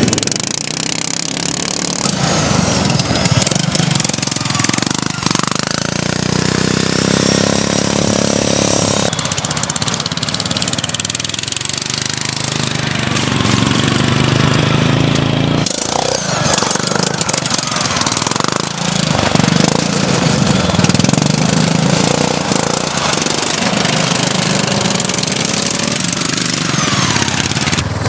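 Racing ride-on lawn mower engines running hard, their pitch rising and falling as the mowers go past, with a sudden break in the sound about halfway through.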